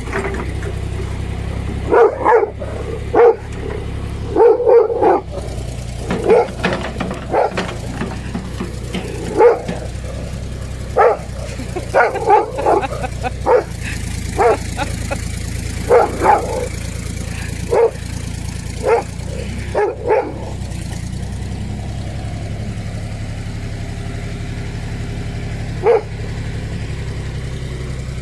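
A dog barking at a running excavator: many short barks in quick runs for about twenty seconds, then one last bark near the end. Under them is the excavator's engine with a steady low hum.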